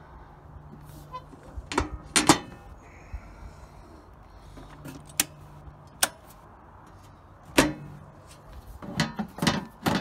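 Clicks and metallic knocks from an outdoor electrical service panel: its metal door opened and shut and a circuit breaker snapped back on to restore power.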